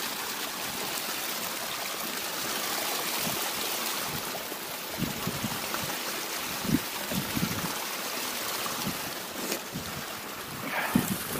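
Small mountain waterfall: water falling and splashing in a steady rush.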